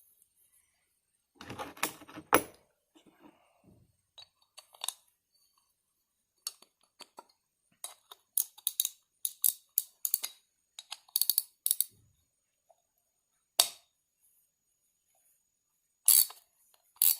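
Small metal carburetor parts and hand tools clicking and clinking on a workbench during carburetor reassembly: a short clatter a couple of seconds in, a run of quick sharp clicks in the middle, and a few single clicks near the end.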